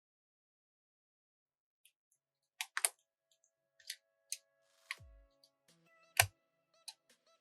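Irregular keystroke clicks on a keyboard fitted with Razer PBT keycaps, beginning after about two and a half seconds of silence, the loudest click about six seconds in.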